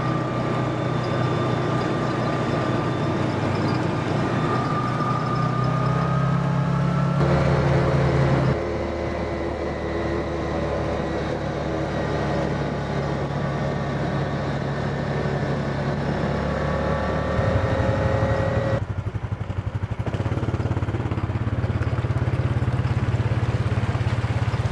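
Side-by-side UTV's engine running while driving, with a fainter whine that rises in pitch a couple of times; the engine note shifts suddenly a few times.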